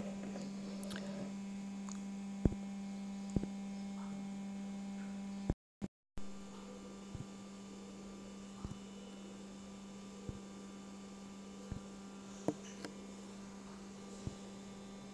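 Steady electrical hum in the recording with a few faint clicks; the sound drops out completely for about half a second about five and a half seconds in, and the hum is a little quieter afterwards.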